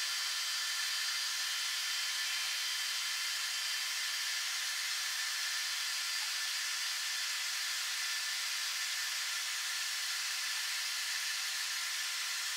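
Induction cooktop running under a pan: a steady hiss from its cooling fan with a few faint high whining tones, unchanging throughout.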